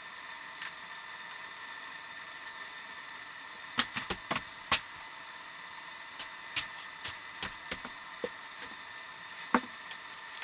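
Sharp metallic clicks and knocks of hand tools and engine parts being handled during motorcycle engine assembly: a quick cluster about four seconds in, then scattered single clicks, one loud knock near the end, over a faint steady hiss with a thin high tone.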